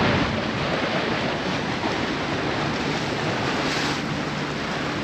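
Wind and water rushing around a sailboat under way, with wind buffeting the microphone; a steady, even rush.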